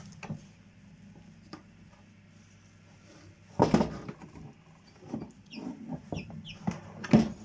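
Chickens clucking: one loud call about halfway through and another near the end, with a few short, high peeps in between, over a faint steady low hum.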